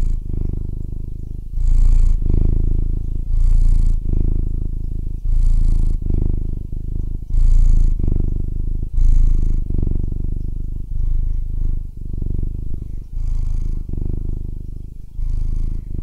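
Domestic cat purring steadily close up, a low rapid buzz that swells and eases with each breath, about every one and a half to two seconds.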